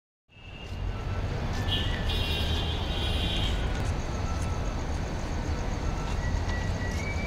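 Steady low rumble of a 2900 series diesel locomotive idling, fading in just after the start.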